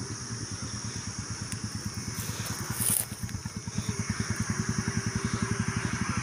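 An engine running with a rapid, even pulse that slowly grows louder, with a brief hiss about three seconds in.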